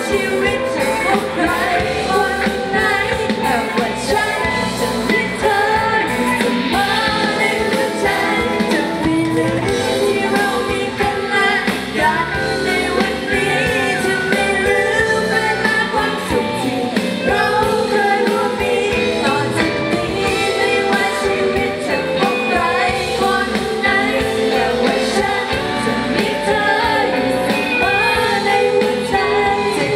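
Live band playing a Thai pop-rock song with a singer, recorded from the audience.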